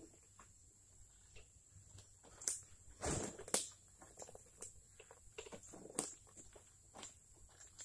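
Scattered light knocks, twig snaps and rustles as a small utility cart shifts about on the forest floor, with a louder scuffing rustle about three seconds in. A faint steady high tone sits underneath.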